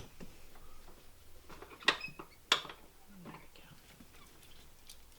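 Light handling knocks on a kitchen counter, with two sharp clacks about two and two and a half seconds in.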